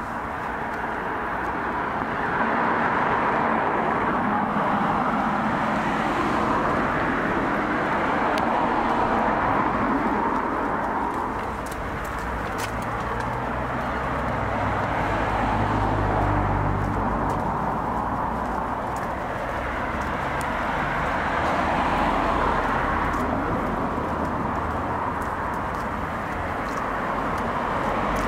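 Cars passing on a road, their tyre and engine noise swelling and fading several times.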